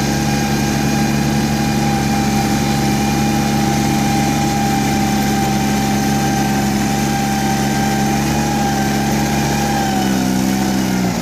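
Yanmar C30R crawler carrier's diesel engine running steadily as the loaded machine drives along on its tracks, with a steady higher whine over the engine note. Near the end the engine note shifts slightly.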